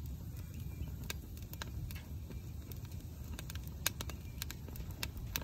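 Split logs of a newly lit wood fire crackling and popping in a stainless steel hot-tent wood stove as the fire catches: irregular sharp snaps, a few louder, over a low steady rumble.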